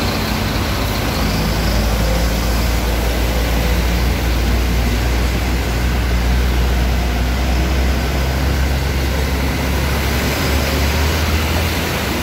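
Heavy truck engines running with a steady low rumble over a broad hiss of rushing floodwater and rain. The sound cuts off suddenly at the end.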